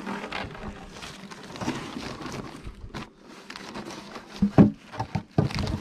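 Beehive boxes and their cover sheet being handled: rustling and scraping, with a sharp knock about three-quarters of the way in and another shortly before the end.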